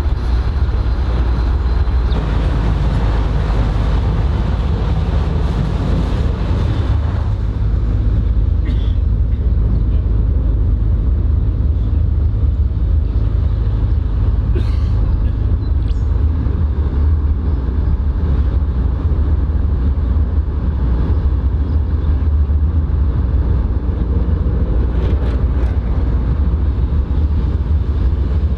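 CPH 'Tin Hare' diesel railmotor under way, heard at its side window: a steady, loud low rumble of engine and wheels on the rails. About seven seconds in, the upper part of the noise drops away, leaving mainly the deep rumble, with a few faint clicks later.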